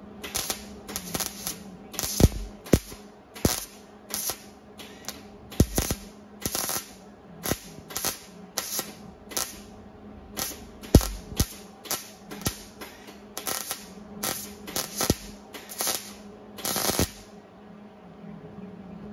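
MIG welder laying a run of short stitch welds, each a brief sputtering burst of the arc, about thirty of them at roughly two a second, stopping near the end.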